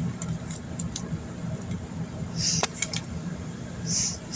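Small plastic clicks and taps of toy Pez dispensers being handled, over a steady low rumble, with two short breaths, one about halfway and one near the end.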